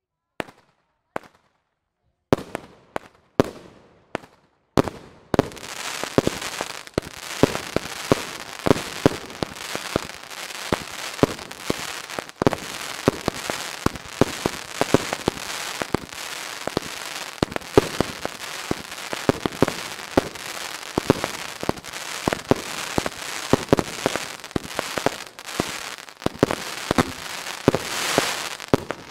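Fireworks going off: a few separate bangs at first, then from about five seconds in a dense, continuous barrage of bangs over steady crackling.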